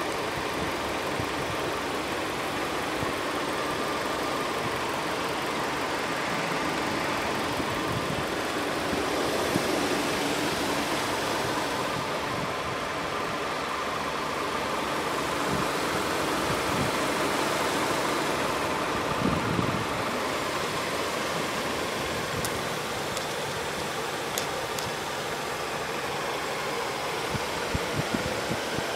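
Kia Sorento SUV's engine idling steadily, with a few light clicks in the second half.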